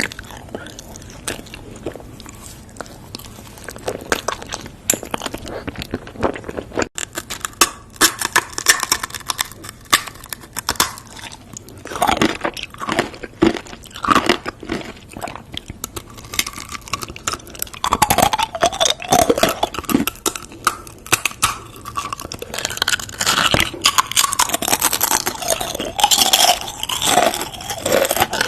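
Close-up eating sounds: repeated crunchy bites into crisp food and chewing, getting louder partway through.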